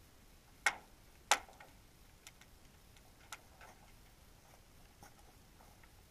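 Irregular sharp clicks and ticks, picked up underwater, over a faint steady hiss: two loud clicks about half a second apart near the start, then a few fainter ticks spread out.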